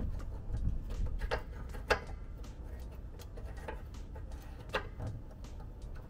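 Scattered light clicks and taps as the wiring of a 12-volt battery disconnect switch is reconnected by hand, about five of them a second or so apart, over a low steady rumble.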